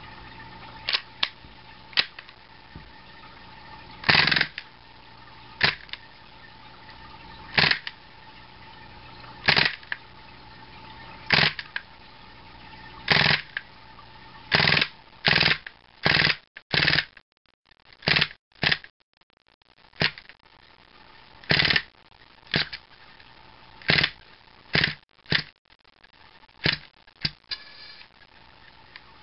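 MGC Glock 18 gas blowback airsoft pistol firing without BBs: about two dozen sharp pops, each with the slide snapping back, one to two seconds apart at first and coming closer together from about halfway in.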